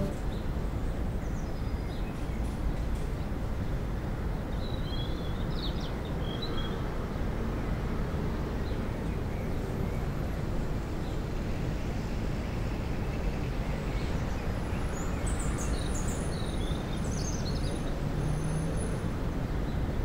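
Outdoor ambience: a steady low rumble of distant city traffic, with a few birds chirping about five seconds in and again from about fifteen seconds.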